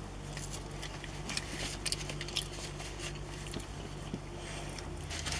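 Quiet eating sounds: French fries being chewed, with scattered faint clicks and crackles over a low steady hum.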